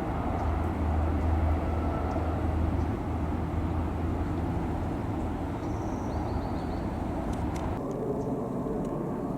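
Steady low rumble of passing motor traffic, heaviest in the first few seconds, with a few faint high chirps about six seconds in.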